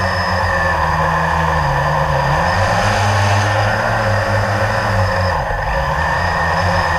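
A drone's electric motors and propellers running in flight, heard close from its onboard camera: a steady buzzing drone whose pitch sags, climbs again and dips briefly as the craft manoeuvres.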